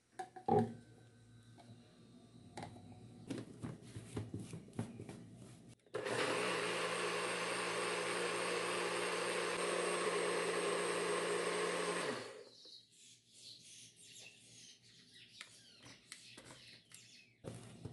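NutriBullet personal blender motor running steadily for about six seconds, blending a thin oat mixture. It starts abruptly about six seconds in and cuts off about twelve seconds in. Before and after it come scattered knocks and clicks from the plastic cup being handled.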